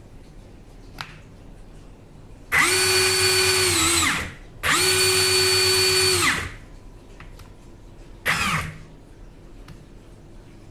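Ingersoll Rand 20V cordless impact wrench spinning freely on trigger pulls: two runs of about two seconds each with a steady whine, then a short blip near the end.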